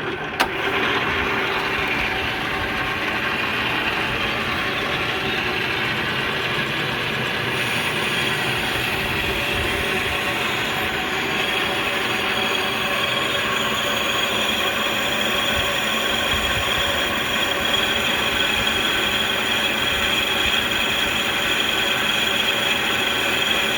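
South Bend 16-inch metal lathe running under power on its three-phase motor, flat belts and gearing, taking a cut. A steady mechanical running sound with several held tones, after a single sharp click about half a second in.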